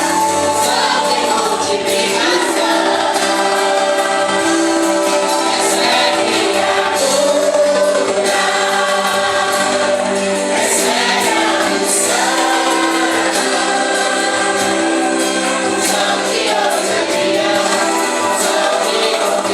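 A vocal group singing a gospel worship song in held, sustained notes over instrumental backing.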